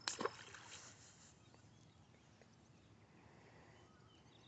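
A brief double splash as a released fish drops back into the pond. Then near-quiet outdoor ambience with faint scattered chirping.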